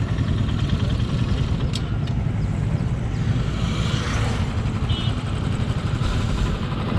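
Motorcycle engines running at idle close by, with another motorcycle passing about four seconds in.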